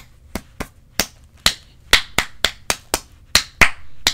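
A small glass bottle of Estée Lauder Double Wear liquid foundation being shaken by hand before use, giving a run of sharp, uneven knocks about three a second.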